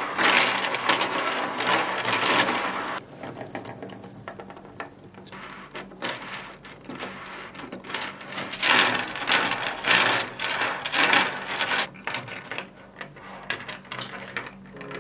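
Plastic segments of articulated 3D-printed reptile toys clicking and rattling against each other as they are flexed by hand, a dense loud stretch for the first three seconds, then sparser bunches of clicks.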